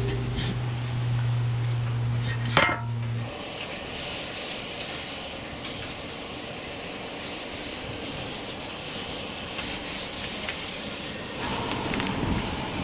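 Cloth rubbing and wiping over the plastic rear sill trim, cleaning it with isopropyl alcohol, a long scratchy stretch from about four seconds in. Before that, a steady low hum stops about three seconds in, just after a sharp click.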